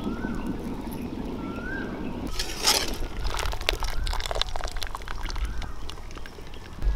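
A wood fire burning under a cooking pot with a low steady rumble, then, after a cut about two seconds in, a splash and a patter of water dripping and streaming back into the pot as a wire skimmer lifts boiled jackfruit seeds out of the hot water.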